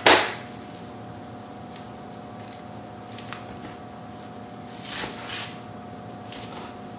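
Chef's knife cutting a bunch of fresh cilantro on a cutting board: scattered knife strokes through the leaves and stems, a few seconds apart. A loud burst of noise comes at the very start, and a faint steady hum runs underneath.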